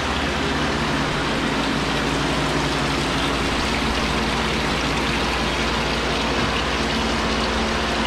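Lukewarm rinse water pouring steadily into a stainless steel wash sink as a milking pipeline's automatic wash system fills it for the rinse cycle. Under it runs a steady low machine hum.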